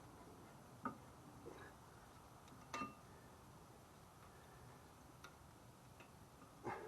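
Light metallic clicks and taps from brake pads and caliper bracket clip hardware being handled and fitted: three sharp clicks about two seconds apart, the middle one with a brief ring, and a few fainter ticks between, over near silence.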